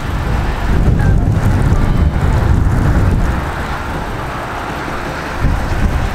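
Wind buffeting the microphone: a loud, uneven low rumble that rises and falls.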